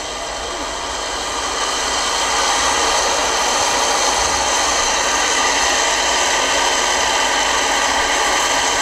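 Steady rushing road and engine noise of a moving vehicle. It swells over the first couple of seconds, holds level, then cuts off abruptly.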